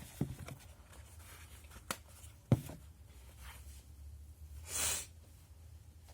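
A few sharp handling clicks, the loudest about two and a half seconds in, then a short hissing breath of about half a second through the nose, about five seconds in, from someone trying to bring on a sneeze that does not come.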